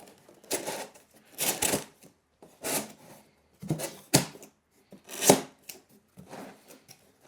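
Cardboard shelf panels being pushed through slots in another cardboard panel: about half a dozen short scraping and rubbing sounds, the loudest about five seconds in.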